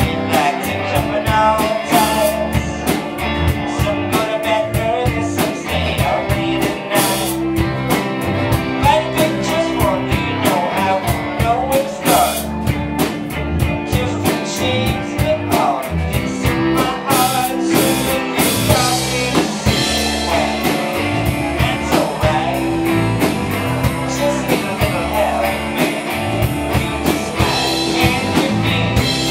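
A live rock band playing a song, with drum kit, bass and electric guitar.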